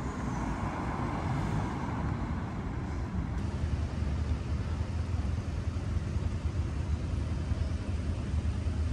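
Road traffic: a steady rumble of cars on a city street.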